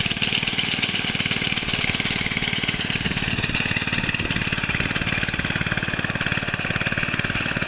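An engine running steadily with a fast, even beat, along with a steady mechanical hiss.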